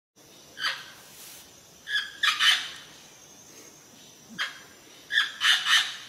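Parrot giving short, harsh squawks, some single and some in quick runs of two or three.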